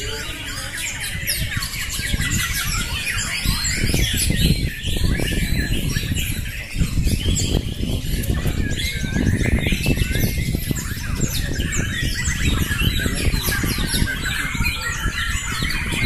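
Many caged white-rumped shamas (murai batu) singing at once, competing against each other: a dense, unbroken tangle of fast whistles, trills and chattering calls, over a low rumble.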